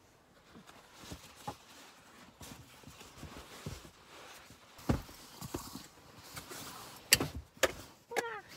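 Rustling and handling noises with scattered knocks and sharp clicks as a mat and a sleeping bag are laid out on the floor of a car, with a short falling squeak near the end.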